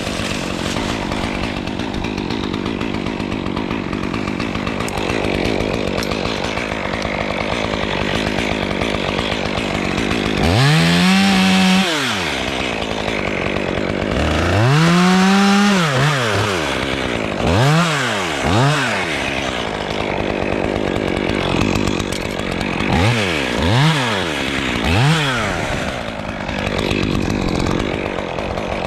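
Chainsaw idling, then opened up to full throttle seven times and dropped back to idle: two longer runs of a second or two, then several short blips.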